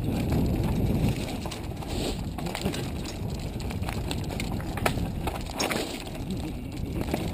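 Mountain bike riding over a rough, rocky trail: tyres rumbling and crunching on stones, with the bike clattering and knocking over bumps.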